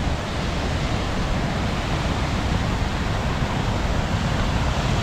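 Steady rushing noise of wind buffeting the microphone, mixed with the wash of sea surf.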